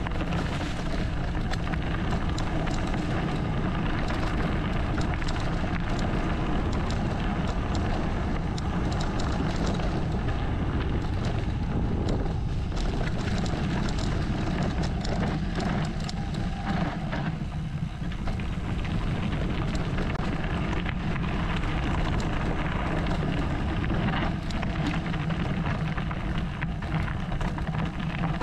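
Mountain bike descending a dirt and gravel trail: steady wind noise on the bike-mounted camera's microphone and a low tyre rumble, with frequent small clatters and rattles of the bike over stones and bumps.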